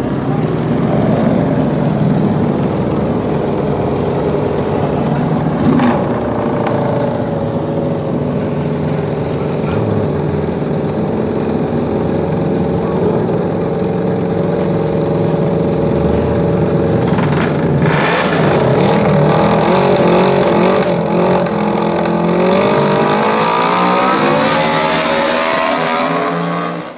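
Racing lawn mower engines running loud and steady, revving with a wavering, climbing pitch over the last several seconds.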